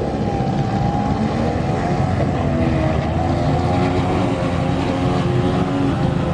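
The engine of a homemade RC boat built around a grass-cutter (brush-cutter) motor, running steadily at speed, its pitch wavering slightly up and down.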